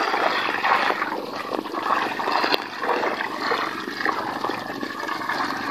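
Seawater splashing and streaming off a fish-corral net as it is hauled up by hand, with a catch of small fish crowded and thrashing in the net's bag at the surface. An uneven, crackling splash that swells and eases.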